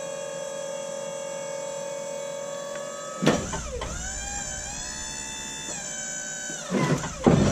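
Wood-Mizer LT35HD sawmill's engine running steadily, then about three seconds in the hydraulics take up load to work the log turner and tip a cant up on edge. The engine note dips and wavers under the hydraulic load, with louder surges near the end.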